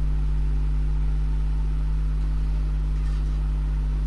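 A steady, low machine hum that does not change.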